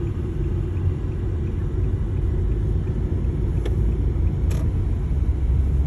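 Car driving, heard from inside the cabin: a steady low rumble of engine and road noise, with two faint clicks in the second half.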